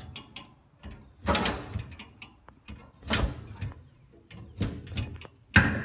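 Hand lever winch (come-along) being ratcheted to haul a boat's old fuel tank up out of its foam bed: irregular metallic clicks and clanks, with three louder strokes, the last near the end the loudest.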